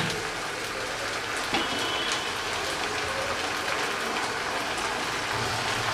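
Soaked dried jujubes and tamarind pulp frying in hot mustard oil in a large wok (kadai), a steady sizzle.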